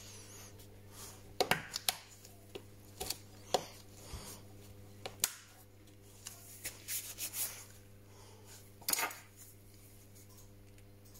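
Scattered small clicks and taps of plastic and metal parts as gloved fingers press components of an opened Samsung Galaxy S9 Plus back into place. The louder clicks come about a second and a half, three and a half, five and nine seconds in, with a run of softer taps in between. A low steady hum lies underneath.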